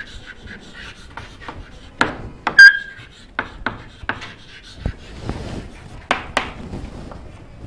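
Chalk writing on a chalkboard: irregular taps and scratchy strokes as letters are written, with a short high squeak from the chalk about two and a half seconds in.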